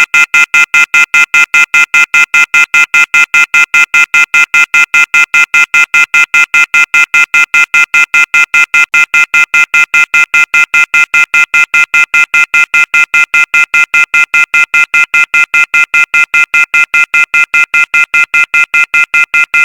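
Emergency alert attention signal: a loud, high-pitched electronic beeping that pulses about five times a second, unchanging throughout.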